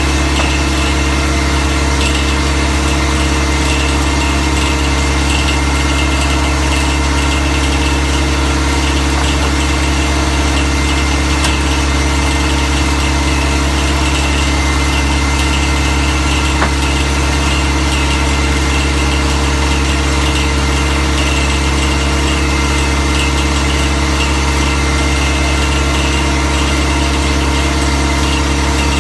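Steady, loud drone of a diamond drill rig's engine running, unchanging throughout, with a few faint knocks of rock core being handled.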